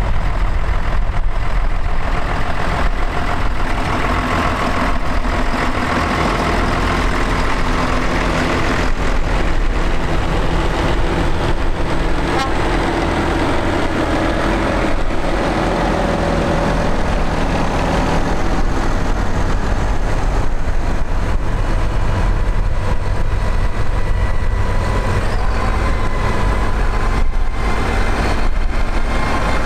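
Diesel farm tractors, a John Deere, a Valtra and Massey Fergusons, driving slowly past one after another, their engines running steadily at close range.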